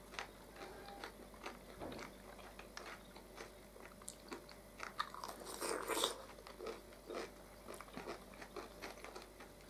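Faint, close-up eating sounds: a home-canned pickled cucumber being bitten and chewed with a crunch, among scattered small mouth clicks. The crunching is loudest about five to six seconds in.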